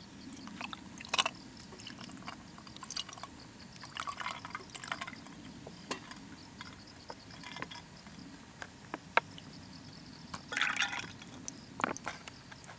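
White wine poured from a spouted pouch over ice cubes in a glass, splashing and filling it, with scattered sharp clicks throughout.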